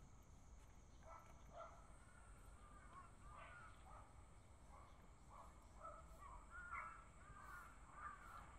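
Crows cawing, faint, a string of short repeated calls starting about a second in.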